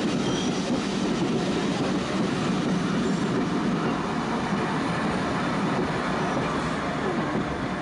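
Vintage wooden-bodied compartment carriages of a heritage steam train rolling past on the rails, a steady rumble of wheels and coaches.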